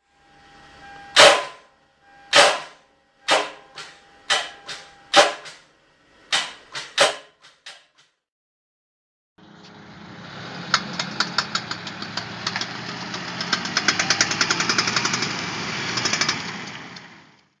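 A seized car engine giving a series of about ten sharp clunks, roughly one a second. After a short pause comes a car on the move with a bad CV joint, clicking rapidly over steady road noise.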